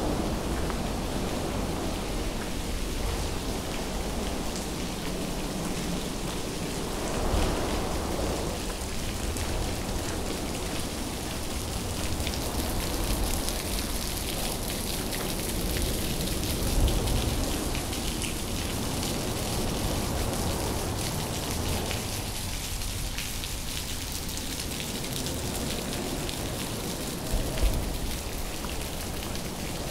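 Heavy rain falling in a steady hiss, with a few brief low bumps.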